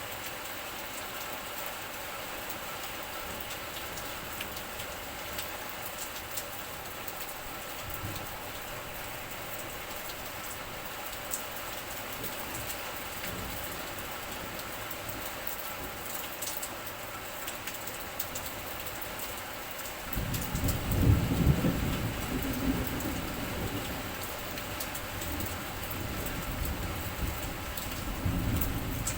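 Steady rain falling, an even hiss with scattered ticks of drops landing close by. About two-thirds of the way in, a low rumble swells up, loudest just after it begins, and carries on underneath the rain.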